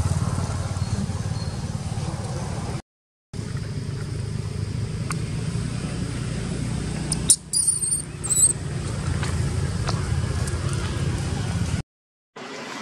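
Steady low rumble, dropping out twice for about half a second. About seven to eight seconds in comes a short cluster of very high-pitched squeaks from a newborn long-tailed macaque.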